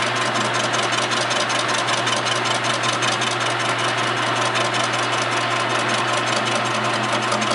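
Metal lathe running with a Honda motorcycle crankcase mounted on its faceplate: a steady machine drone with a low hum and a fast, even ticking.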